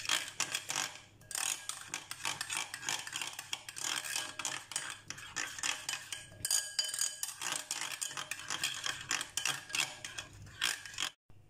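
Metal spoon stirring thick yogurt marinade in a glass bowl, with quick, irregular clinks and scrapes of the spoon against the glass. The sound cuts off abruptly shortly before the end.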